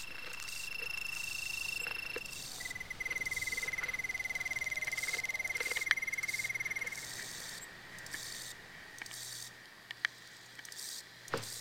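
Insect stridulation: a steady high trill for the first two seconds or so, then a rapidly pulsed buzzing trill, slightly lower, lasting about four seconds, over a background of repeating high insect chirps. A few sharp clicks near the middle and end.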